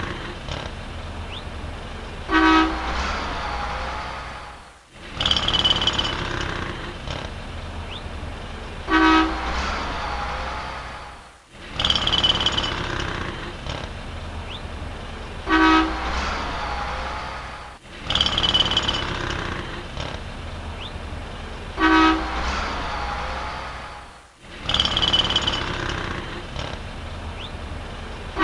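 City street traffic with a low steady rumble and a short car-horn honk, repeating as a loop about every six and a half seconds.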